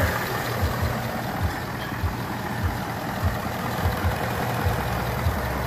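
2019 Ford Mustang GT's 5.0-litre Coyote V8 idling steadily once warm, down off its fast idle and purring like a kitten. It is running on fresh synthetic oil just after an engine flush.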